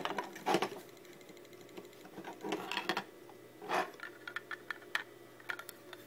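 Plastic project box being opened and handled by hand: irregular clicks, scrapes and rattles of the plastic case and the circuit board inside it.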